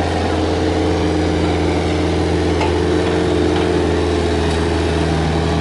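Komatsu PC45MR mini excavator's diesel engine running steadily under work as the machine digs, a constant low hum.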